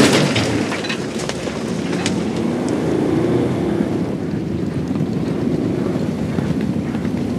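Metal starting-stall gates banging open, followed by a few sharp clacks and then the steady rumble of a field of racehorses galloping on turf.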